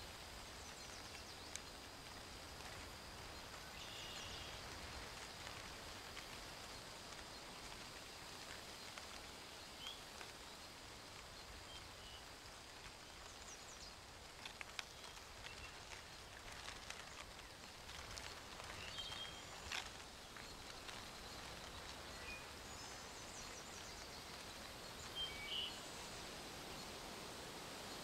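Faint outdoor nature ambience: a steady soft hiss under a thin, steady high tone, with occasional short, high bird chirps scattered through it and a couple of louder chirps near the end.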